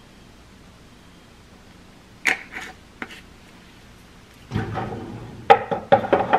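Quiet kitchen room tone, then a few light clicks about two seconds in and a louder run of knocks and clatter near the end: a small glass spice jar being capped and put away in the kitchen.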